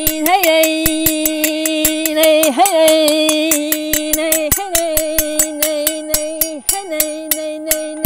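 A voice holding one long sung tone in light-language toning, with a brief swoop in pitch every two seconds or so, over quick even clicks about four a second.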